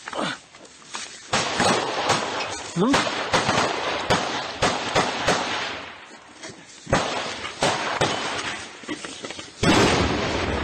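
Noisy combat sound of someone running through dry grass: rustling, jolting and heavy breathing on the microphone, broken by repeated sharp cracks of small-arms gunfire, with shouting.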